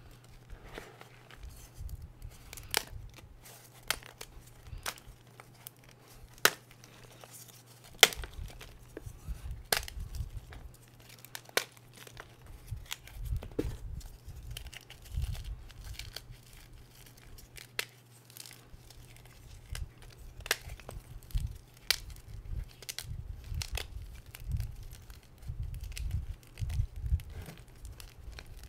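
Hard reformed Spri gym chalk slices being snapped and crushed by hand in a tub of loose chalk powder: sharp cracks every second or two over a dry, crumbly rustle and soft thuds as the pieces break apart.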